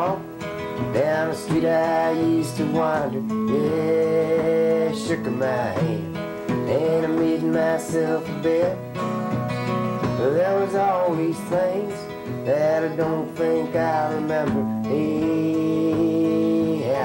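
A man singing a country-folk song to his own acoustic guitar accompaniment, the guitar played steadily under a sung melody.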